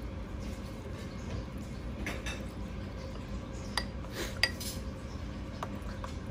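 A metal ladle clinking against ceramic bowls as soup is served: a few short, sharp clinks, the loudest a little past the middle, over a steady low background hum.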